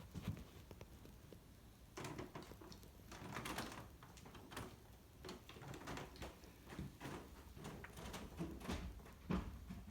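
Irregular soft rustling with scattered light knocks and clicks.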